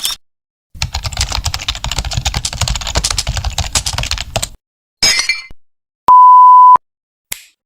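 A string of separate stock sound effects. First comes rapid computer-keyboard typing for about four seconds. A short crackly burst follows, then a loud, steady censor bleep at a single pitch lasting under a second, which is the loudest sound.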